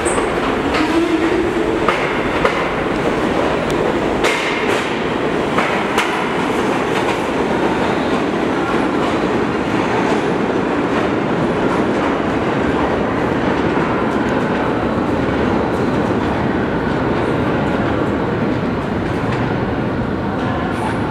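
R46 subway train pulling out of the station: its cars roll past with the clicking of wheels over rail joints, and a short rising motor whine comes about a second in as it picks up speed. It then runs on steadily as it pulls away down the tunnel.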